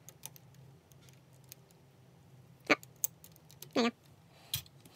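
Clear plastic pieces of a 3D crystal puzzle clicking as they are pressed and fitted together. There are about five short, separate clicks, the loudest about halfway through, and one near the end has a brief squeak.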